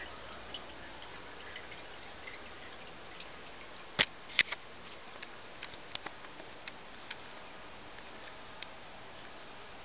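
A cat perched on a toilet making small sharp clicks and taps, two louder ones about four seconds in and a scattering of fainter ones after, over a steady hiss.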